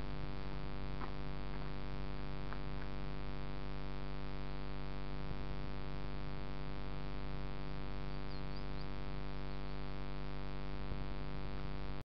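A steady, unchanging electrical-sounding hum with many overtones. A couple of faint clicks come in the first few seconds.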